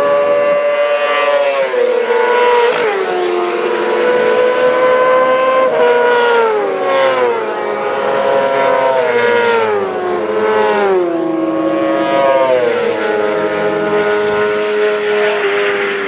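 Several classic racing sidecar outfits running at high revs down the straight, their engine notes stepping down in pitch again and again as they come through.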